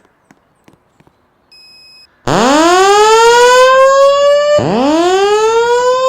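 Fire alarm evacuation speakers sounding a whoop tone: a loud siren sweep that rises in pitch over about two seconds, starting about two seconds in and then starting again. Just before it come a few faint clicks and a short, quiet high beep.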